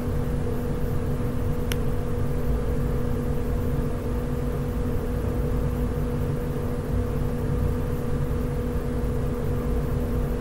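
Steady background hum: a low rumble with two constant tones held throughout. A single faint click about two seconds in.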